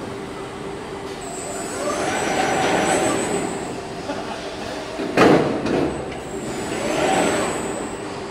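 Car body-shop assembly line machinery: a steady machine hum, with two swelling whirring passes carrying a high whine that rises and falls, about two and seven seconds in, and a sudden loud burst about five seconds in.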